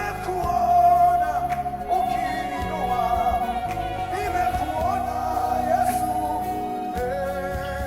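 Gospel worship music with singing: a long wavering note held over the band, moving to a lower note near the end.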